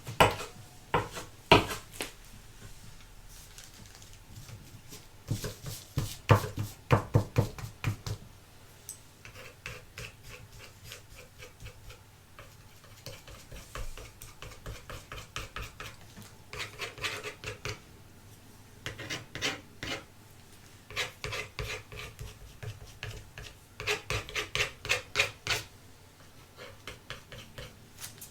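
Rapid scraping strokes in bursts of one to two seconds, several strokes a second, with short pauses between bursts.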